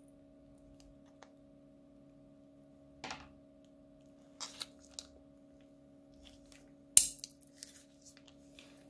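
Scissors snip the tip off a plastic piping bag, then the bag crinkles and crackles in short bursts as slime is squeezed out of it. A sharp click about seven seconds in is the loudest sound. A faint steady hum runs underneath.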